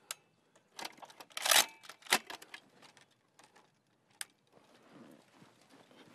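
Metal clicks and clacks of a belt-fed machine gun being handled and loaded, with a loud short clatter about one and a half seconds in and a sharp clack just after it, one more click near four seconds, then faint rustling.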